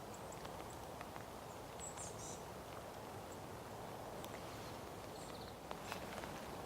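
Steady rain on the hide with scattered drips and sharp taps, a cluster of them just before the end. Brief high chirps from small birds come about two seconds in and again faintly past the middle.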